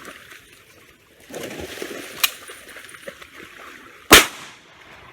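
Water splashing as a Labrador swims, then a single very loud shotgun blast about four seconds in, fading quickly.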